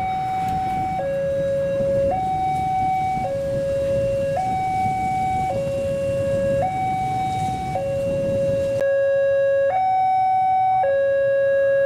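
Railway level-crossing alarm sounding a steady two-tone hi-lo warning, a higher and a lower note alternating, each held about a second. The background noise under it drops away abruptly near the end.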